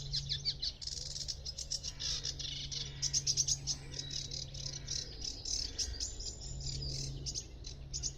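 Songbirds singing in a reedbed: a fast, dense chatter of high notes. A steady low hum runs underneath.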